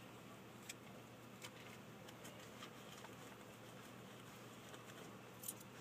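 Near silence: low background noise with a few faint, sharp clicks.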